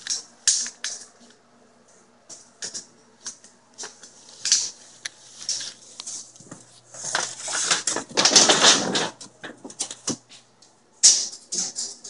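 A run of sharp clicks, taps and short rattles from handling tools and parts, with a longer, louder rattling scrape about seven to nine seconds in.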